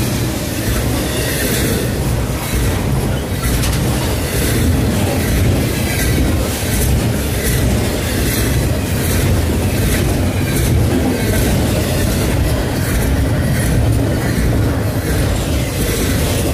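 Double-stack container freight train passing close at speed: a steady, loud rumble of steel wheels on rail, with repeated clicks as the wheels run over the rail joints.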